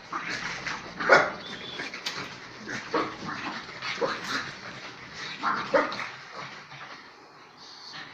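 Pugs play-fighting, with short barks and yelps a second or two apart over the first six seconds, then quieter.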